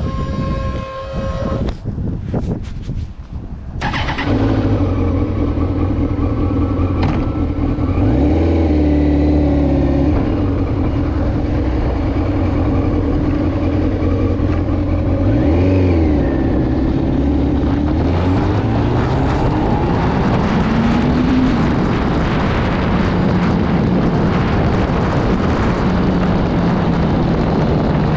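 The inline-four engine of a 2008 Kawasaki ZX-10R Ninja sport bike, heard from the rider's seat. It is quieter and choppy at first, then pulls away about four seconds in and accelerates, its pitch rising and dropping back with each gear change, before settling into steady cruising with wind rushing past.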